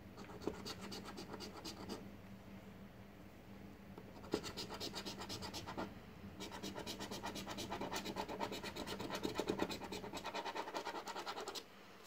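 A coin scratching the coating off an instant lottery scratch ticket in quick back-and-forth strokes. The scratching comes in three spells, with a pause of about two seconds after the first, and stops shortly before the end.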